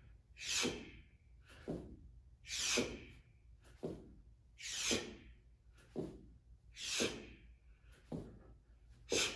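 A man breathing hard in a steady rhythm through push-up jacks: a strong breath about every two seconds with a softer one in between.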